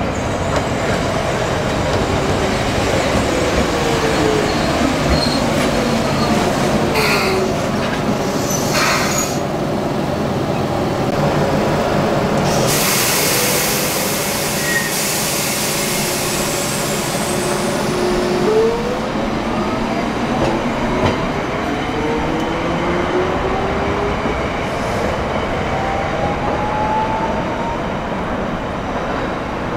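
Toyohashi Railway Mo 780 tram with a Toyo early GTO-VVVF inverter. Its motor whine falls in pitch as it brakes into the stop, a burst of hiss comes about halfway through, and then several whines rise one after another as it accelerates away, over wheel-on-rail noise.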